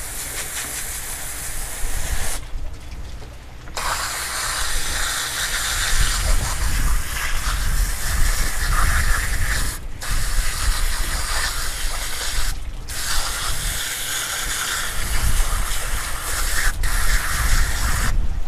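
Garden-hose spray nozzle hissing as it sprays water onto two freshly gutted fish on a cutting board, rinsing them clean. The spray stops for about a second near the start, then breaks off briefly three more times.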